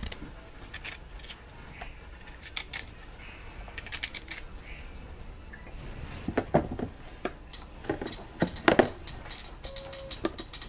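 Irregular light clicks and small knocks of a kitchen knife and dishes as fruit is peeled and cut by hand, with two louder knocks in the second half.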